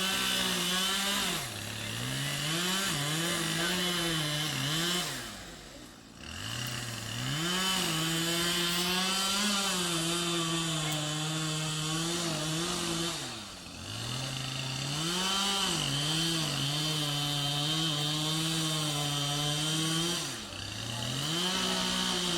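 Chainsaw cutting into a cottonwood tree, starting suddenly and held at high revs, with the engine dropping back briefly about four times and revving up again each time.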